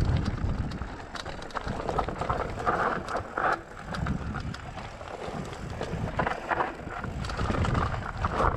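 Giant Glory downhill mountain bike descending a rough dirt trail: the tyres rumble over dirt and rocks, with many short sharp rattles and clicks from the bike throughout.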